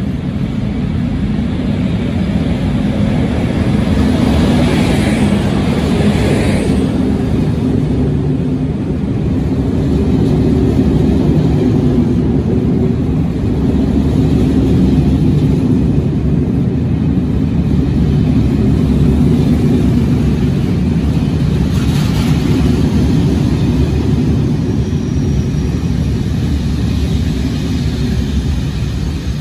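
SNCB class 27 electric locomotive and its M4 double-deck coaches arriving at an underground platform, a steady loud rolling rumble of wheels on rail as the coaches pass. A brief hiss comes a few seconds in, and a single sharp clack about two thirds of the way through.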